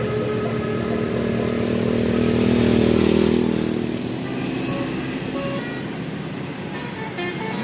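A motor vehicle passing close by: its engine sound swells to a peak about three seconds in and then fades away. Near the end, a few short horn notes begin.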